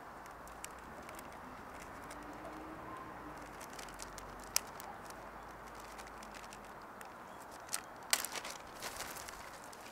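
A quiet steady background with scattered faint clicks and crinkles of a clear plastic bag and small objects being handled. The clicks are sharpest in a cluster near the end.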